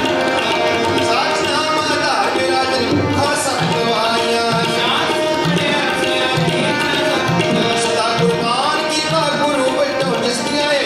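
Harmonium and tabla playing Sikh kirtan. Sustained reed chords and melody run over a tabla rhythm marked by deep bass strokes.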